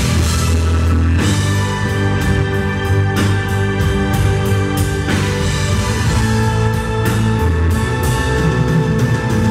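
Live rock band playing: drum kit with frequent cymbal hits over sustained keyboard chords from a Nord Electro 3 and a bass line.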